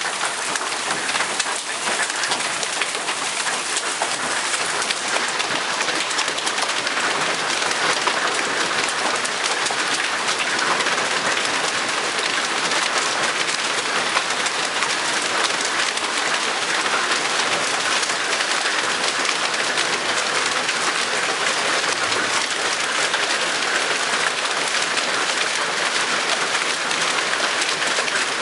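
Hail and heavy rain pelting a wooden porch deck and the yard around it: a steady, dense patter of many small impacts.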